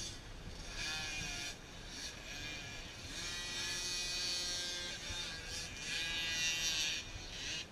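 Small 50cc youth motocross bike engines buzzing at high revs out on the track, the pitch rising and then held steady for a couple of seconds in the middle.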